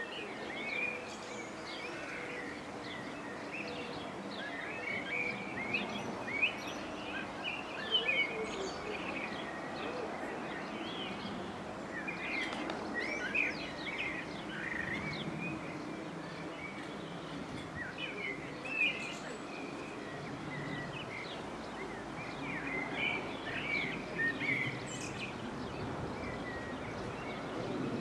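Small birds chirping and singing, many short calls one after another, over a steady low background noise.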